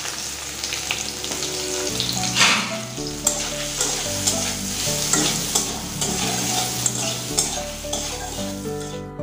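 Soya chunks sizzling as they fry in hot oil in a kadai, stirred with a metal spatula that scrapes and clicks against the pan.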